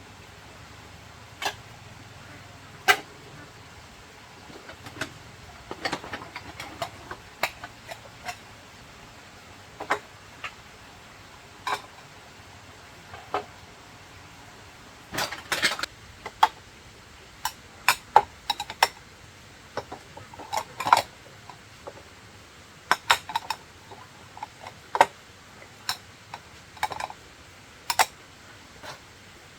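Scattered sharp clicks, knocks and clatter of hard objects being handled, coming more often in the second half.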